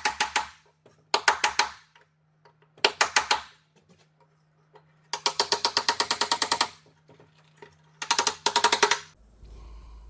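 Hammer rapidly tapping a chisel into the wooden edge of a door, cutting the shallow mortise for a deadbolt latch plate. The taps come in five quick runs of about nine a second, the longest lasting about a second and a half.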